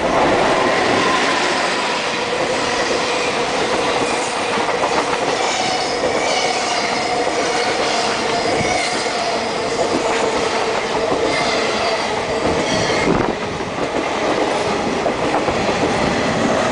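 An EF65 electric locomotive and a long train of blue sleeper coaches passing close by at speed. There is a steady rush of wheels on rail with clickety-clack over the rail joints, and thin squealing tones run through it.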